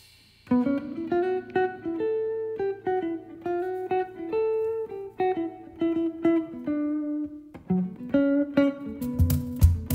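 Guitar playing a picked melodic intro phrase of single plucked notes that ring and fade, starting after a brief silence. Near the end, low bass notes and percussion with cymbal hits join in.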